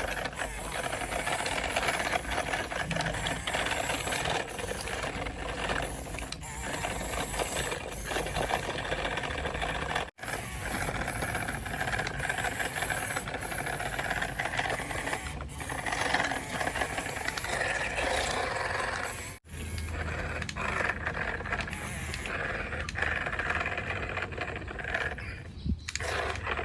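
Small electric gear motors of a plastic RC toy truck whirring, with the plastic body and parts rattling. The sound stops abruptly twice and picks up again at once.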